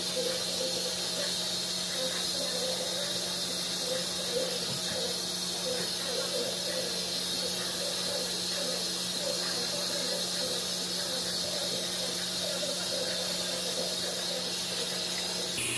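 Water running steadily from a bathroom tap, an even hiss with a steady low hum under it.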